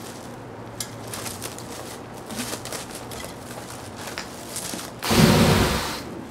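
Fire breathing: about five seconds in, a sudden loud whoosh as a fireball is blown through the torch flame, fading within about a second. Faint clicks and crackles come before it.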